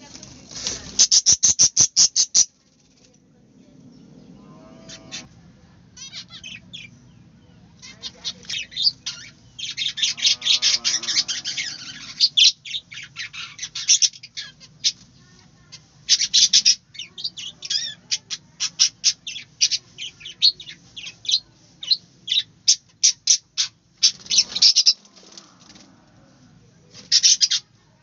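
A flock of budgerigars chirping and chattering in an aviary: quick runs of short, sharp chirps that come and go. The densest runs fall about a second in, around the middle and just before the end.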